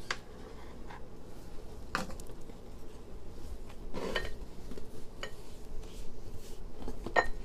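A few scattered clicks and taps, about two seconds apart, as a knife cuts puff pastry on a countertop and hands lay out and press the pieces.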